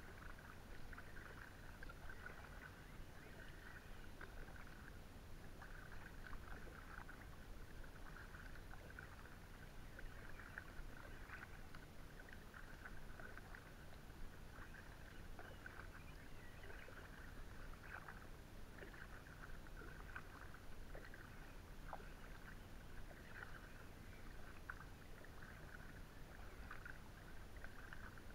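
Faint kayak paddling: the double-bladed paddle dipping into calm river water, with small splashes and drips as the blades lift, irregular throughout.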